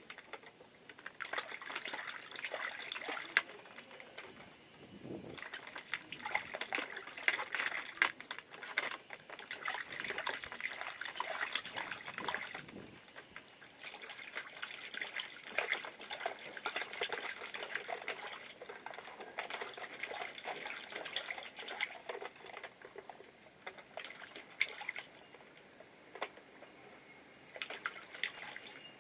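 Water splashing and trickling through the plastic channels of an Aqua Play water toy, swelling and fading in bursts with many small sharp clicks.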